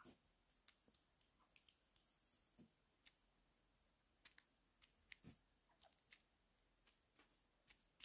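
Faint, irregular clicks and light taps of a grey jay's bill pecking crumbs from a bare palm, otherwise near silence.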